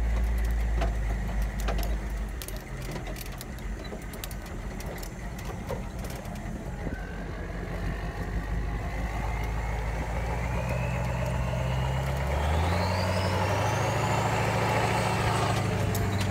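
Turbocharged diesel V8 of an M1045A2 Humvee pulling away, heard from inside the cab. A thin turbo whistle climbs steadily in pitch from about seven seconds in, over the engine's low rumble, and the engine note steps up twice near the end. Loose clicks and rattles sound in the first few seconds.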